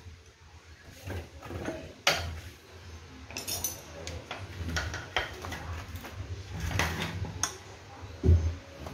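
Scattered metal clinks and taps of a hand tool against a chainsaw under repair, with a heavier knock near the end.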